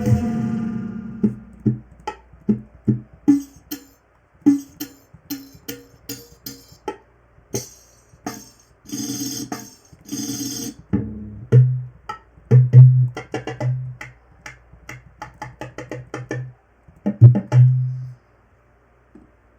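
Electronic drum pattern playing: a run of short percussive hits, a noisy stretch about halfway, then heavy kick-drum hits in the second half. It stops abruptly about 18 seconds in, and near silence follows.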